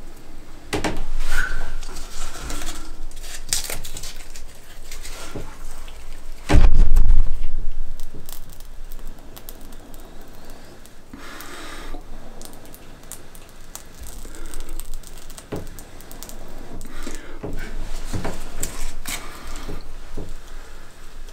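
Irregular knocks, clicks and rustling of objects being handled close to the microphone, with one loud, deep thump about six and a half seconds in.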